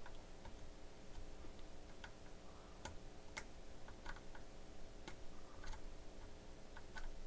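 Faint, irregular small clicks of a hand tool picking and scraping at a circuit board, clearing out burnt carbon deposits.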